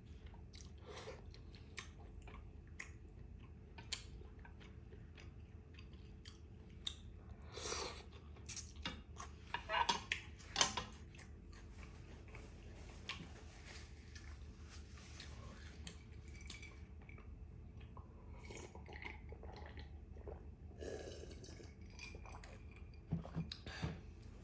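Close-miked chewing of a beef rice-noodle salad, with wet mouth clicks and smacks; they come thickest and loudest about eight to eleven seconds in. A steady low hum lies under it.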